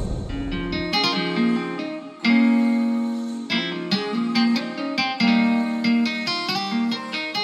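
Background music of plucked acoustic guitar, a run of separate picked notes and strums. A noisy rushing sound fades out in the first second.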